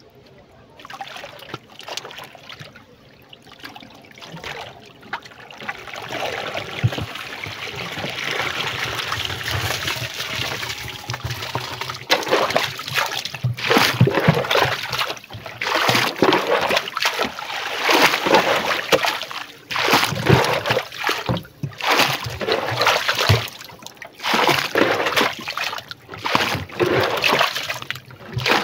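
River water splashing and sloshing as a rubber bucket fish trap is hauled up on its line beside a wooden canoe. A steady rush of water builds about six seconds in, then gives way to irregular splashing surges.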